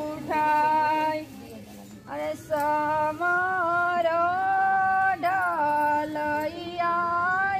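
A woman singing a Chhath puja devotional folk song in long, held, wavering notes, with a short break about a second in.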